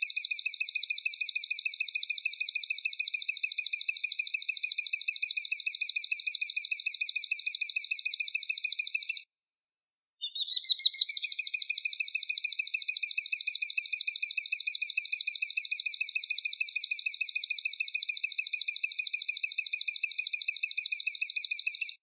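Recorded call of a bird of prey (elang, a hawk or eagle): a rapid, evenly repeated high-pitched note. It breaks off for about a second near the middle, fades back in, and keeps going until it stops.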